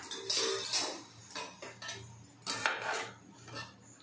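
A slotted metal spatula scraping and clinking against a metal pan as it stirs a thick batter with sliced green chillies, in several short bouts.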